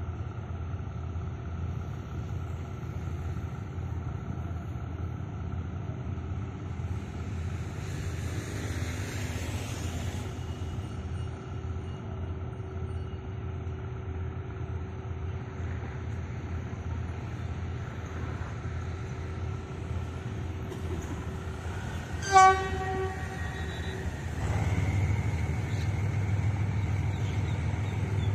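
GE diesel-electric locomotive hauling a passenger train as it approaches, its engine running with a steady drone. About three-quarters of the way through it gives one short, loud horn blast, and soon after the engine grows louder.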